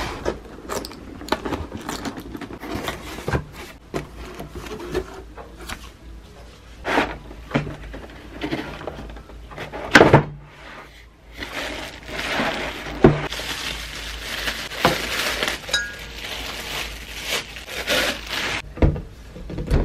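Unboxing of a Tefal Powermix mini blender: the cardboard box is opened and the parts are pulled out and set down on a table with knocks and clicks, two of them louder. In the second half, crinkly plastic wrapping rustles as the glass jar is unwrapped.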